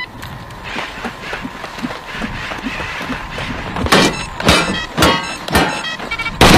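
Rifle gunfire: a few soft thuds, then sharp single shots about half a second apart starting about four seconds in, a quick string of lighter cracks, and a loud sustained burst of automatic fire beginning at the very end.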